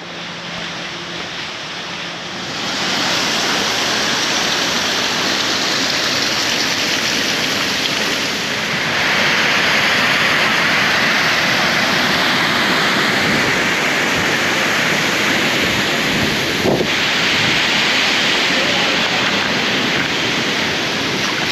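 River water rushing over rocks, a steady loud wash that grows louder about three seconds in and again around nine seconds in, with a single brief knock near the end.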